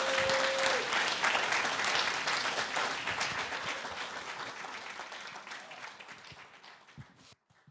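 Audience applauding, a dense patter of many hands clapping that fades away over the last few seconds and cuts off near the end. A single held tone sounds under it for about the first second.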